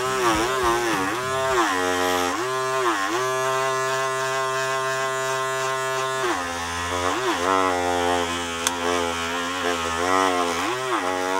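Music: a single reedy lead line that holds one note and bends down and back up again and again, with a long steady note in the middle, over a low steady drone.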